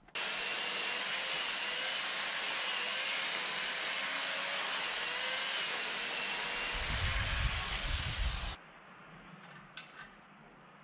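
Old electric chainsaw running and cutting into a large tree trunk, a steady motor whine that starts abruptly and cuts off suddenly about eight and a half seconds in, with a deeper rumble in the last couple of seconds before it stops.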